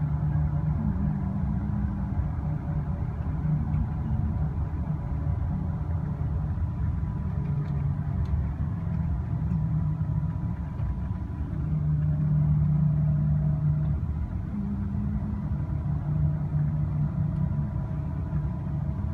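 Steady low rumble of a vehicle running, with a low droning hum that swells and fades every few seconds.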